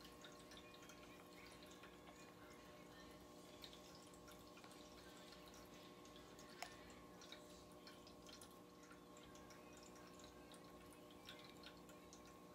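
Near silence: room tone with a faint steady hum and a few soft ticks, and one sharper click about six and a half seconds in.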